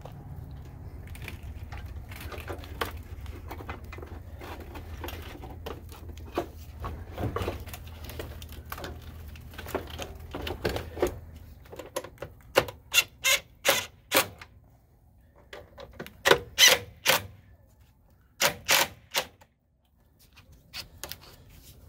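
Car battery being set down into its tray with clunks and knocks, then its hold-down being fastened. In the second half this gives several short bunches of sharp clicks.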